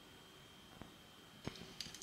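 Olive oil drizzled from a glass bottle onto sliced tomatoes: near silence with a few faint soft ticks in the second half.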